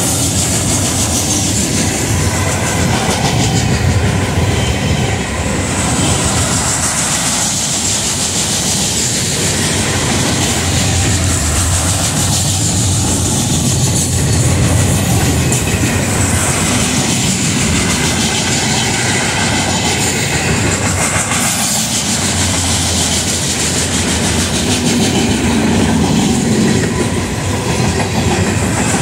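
Loaded flatcars of a freight train rolling past, their steel wheels clacking over the rail joints in a loud, steady run of noise.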